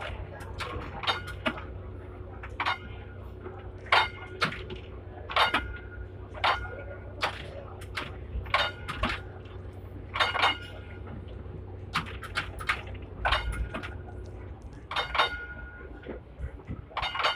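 Hong Kong tram's foot-stamped warning gong rung over and over, sharp metallic dings at irregular intervals of about one or two a second, several ringing on briefly, to warn pedestrians off the track. A steady low running hum from the tram lies beneath.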